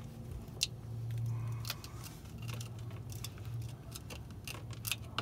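Irregular, sparse metallic clicks and taps of hand tools, a wrench and a screwdriver, against the bolts and the under-engine cover plate as it is unbolted.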